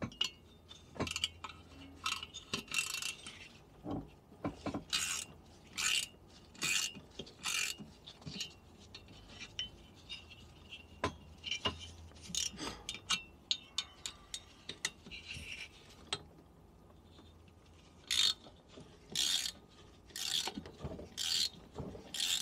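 Socket ratchet clicking in short runs as the cylinder head nuts of a Minarelli V1 50cc two-stroke moped engine are undone in a crisscross pattern, with brief pauses between strokes.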